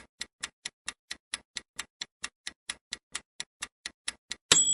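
Clock-style ticking sound effect of a quiz countdown timer, even and quick at about four and a half ticks a second. Near the end it gives way to a sudden bright ringing tone.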